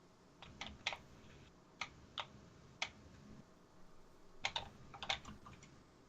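Light, irregular keystrokes on a computer keyboard, about a dozen taps in small clusters with short pauses between, a quicker run near the end.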